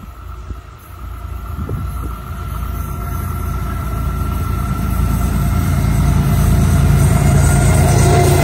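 Florida East Coast Railway diesel freight locomotive approaching and passing close by, its engine rumble growing steadily and loudest as it goes by near the end. A steady high tone runs through the first half, and a tone slides down in pitch as the locomotive passes.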